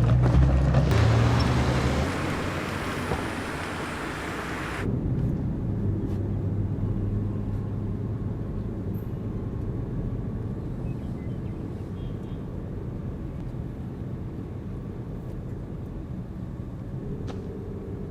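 A car running with a steady low rumble of engine and road noise. For the first few seconds a louder rushing noise sits over it, then cuts off suddenly.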